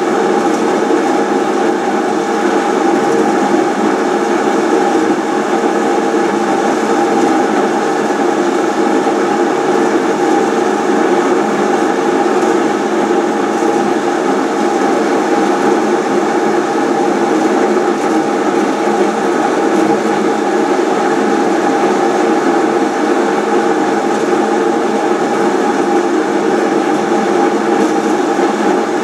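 Haas SL30 Big Bore CNC turning center running a program: a steady machine hum with a few held whining tones, even in level and pitch throughout.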